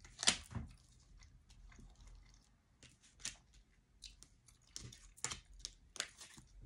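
Faint, irregular clicks and soft taps of tarot cards being handled: a scattering of them, a sharper one just after the start and a closer cluster about five seconds in.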